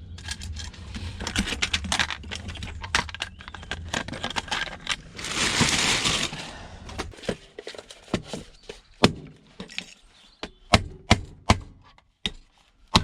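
Hard plastic and metal electronics parts being handled and broken apart: a run of sharp cracks, clicks and knocks, with a longer hissing rustle about five seconds in.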